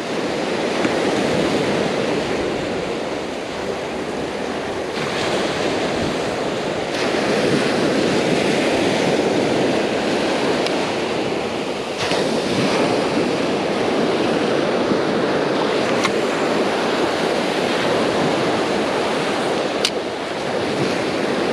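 Ocean surf breaking on a sandy beach: a steady wash of waves that swells louder and eases several times as the breakers come in.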